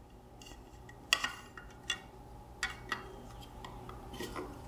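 Small metal lamp parts clicking and clinking as they are handled and fitted together by hand: five or six sharp separate clicks, the loudest about a second in.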